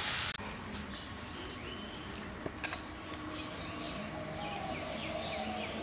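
A moment of stir-fry sizzling in a wok cuts off abruptly, then birds chirp faintly over a quiet outdoor background.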